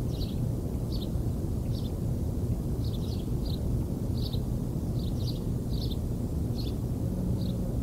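Steady wind rumble on the microphone, with a bird chirping short high notes about once or twice a second throughout.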